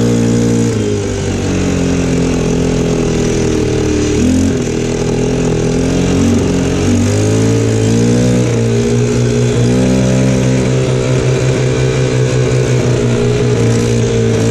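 Quad bike (ATV) engine running while riding, its pitch varying with the throttle: it drops about a second in, rises and falls several times, then holds steady near the end.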